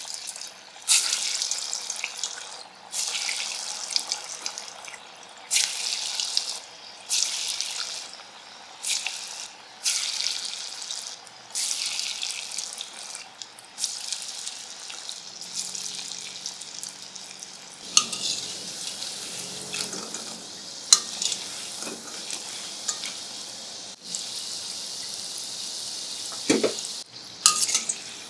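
Balls of lentil pakora batter dropped one after another into hot oil in a steel wok, each hitting with a sudden sizzle that fades, about every second. The oil then sizzles steadily as the fritters deep-fry, with a couple of metal clinks from a wire spider strainer against the wok near the end.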